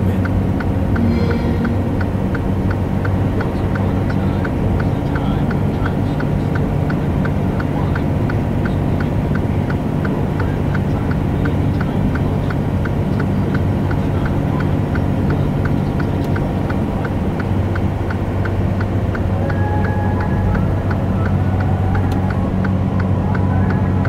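Inside a semi truck's cab: the engine and road noise drone steadily with a low hum, and a light ticking about twice a second runs throughout, like a flasher relay.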